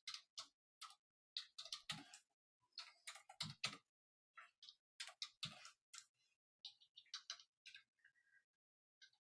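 Computer keyboard typing: faint, irregular keystroke clicks, with a few heavier, deeper key presses among them.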